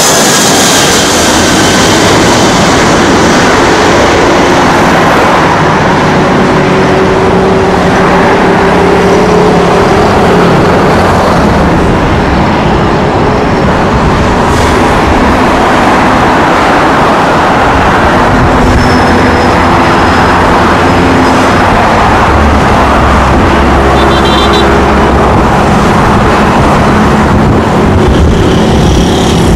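Airbus A320 jet airliner passing low overhead on final approach and moving away, its engine whine falling in pitch in the first couple of seconds. After that, loud steady road traffic from cars and trucks on the highway below the bridge fills the sound, with the rumble of passing engines rising and fading.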